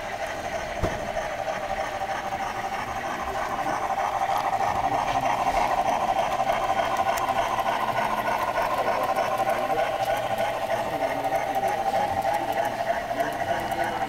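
Athearn HO-scale U.S.R.A. light 2-8-2 Mikado model steam locomotive and its mixed train running past: a steady motor and gear hum with light clicking of wheels over rail joints and turnouts, louder for several seconds in the middle as the train goes by.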